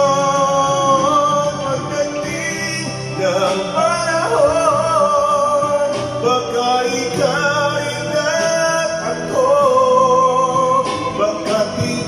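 A man singing long held notes with a wavering vibrato into a handheld microphone over backing music.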